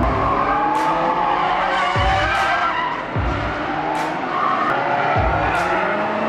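Drifting cars with tyres squealing and engines running, over background music with a regular beat.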